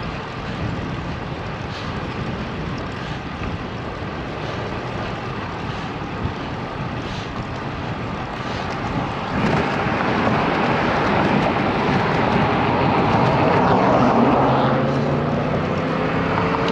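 Wind rushing over a bike-mounted GoPro's microphone as the bicycle rides along. About halfway in, a passing car's noise swells, peaks near the three-quarter mark, then eases off.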